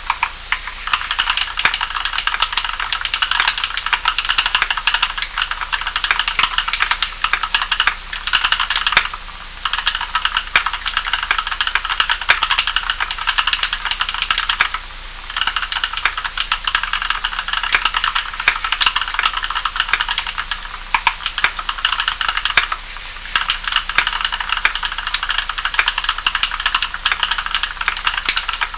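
Steady typing on a custom mechanical keyboard with Kailh Cream linear switches, lubed with Krytox 105 oil, filmed and fitted with 75 g springs. Rapid, continuous keystrokes, with a few short pauses in the typing.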